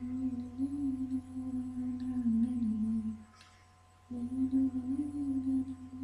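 A woman humming a tune in long, slowly wavering notes: two held phrases, with a short break for breath about three seconds in.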